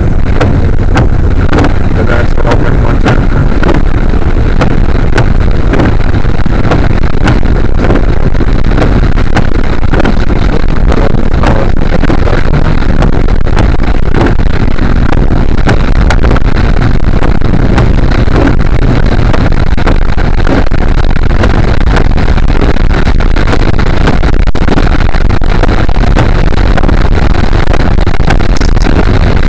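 Loud, distorted driving noise from inside a car, picked up by a dash cam's microphone: a steady rumble of the car and its tyres on wet road, with many small clicks.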